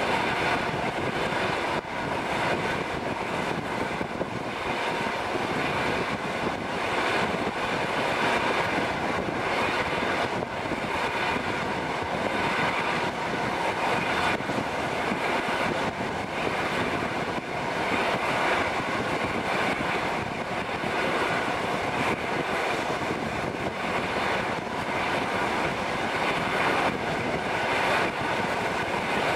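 Passenger train running steadily at speed, heard at an open carriage window: a continuous rush of wheels on the rails and air streaming past.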